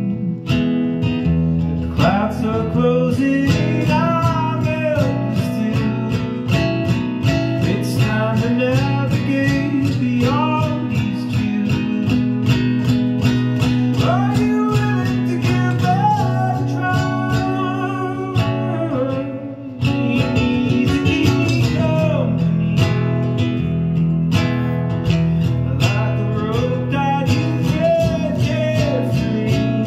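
A man singing while playing an acoustic guitar, the guitar steady beneath a voice that bends through long notes. The playing dips briefly about two-thirds of the way in.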